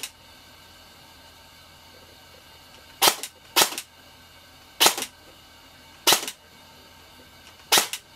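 AGM HK416 airsoft electric gun firing single shots, about six sharp cracks one to a second and a half apart, as it is test-fired while the motor height is set to cure a grouchy-sounding motor.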